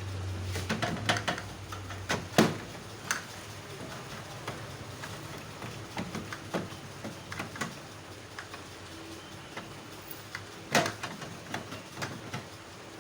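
Scattered clicks and knocks of hands handling microwave oven parts and tools, the loudest knocks about two and a half seconds in and near eleven seconds.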